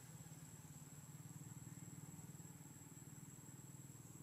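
Near silence: a faint steady low hum with a thin, steady high-pitched tone above it.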